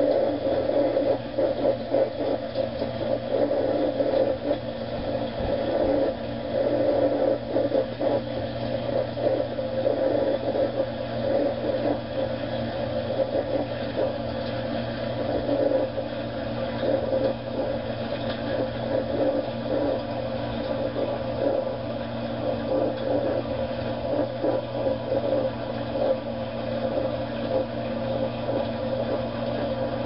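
Dishwasher running, heard from inside the closed tub: a steady motor hum under a churning, fluctuating wash noise.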